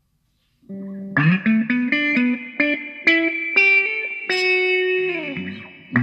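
Electric guitar played through a handmade auto-wah envelope filter pedal: a run of single picked notes starting just under a second in, ending with a falling slide near the end.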